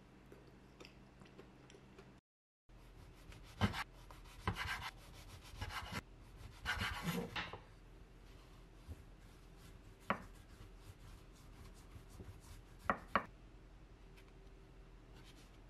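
A wooden rolling pin flattening a crustless slice of white bread on a wooden cutting board. Scattered knocks and a stretch of rubbing come first, then a few sharp taps on the board.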